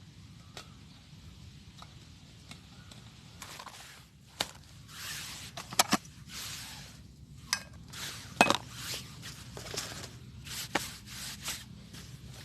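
Rustling and shuffling with a handful of sharp clicks and knocks, the loudest two close together about six seconds in and another about eight and a half seconds in.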